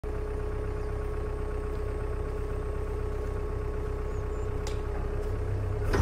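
Simulated vehicle engine idling steadily, with a fine rapid low pulse and a steady tone over it. A faint click comes about four and a half seconds in.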